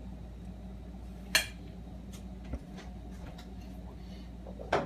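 Utensil and cookware clinking as food is dished from a saucepan onto a plate: one sharp knock about a second and a half in, a lighter one later, and a louder clatter near the end, over a low steady hum.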